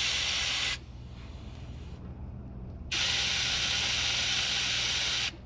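Air hissing out of a 35-inch tire through a Rhino USA valve-core-removal deflator, let out in two bursts: a short one at the start and a longer one of about two and a half seconds from about three seconds in. This is the last of airing the tire down to 15 PSI.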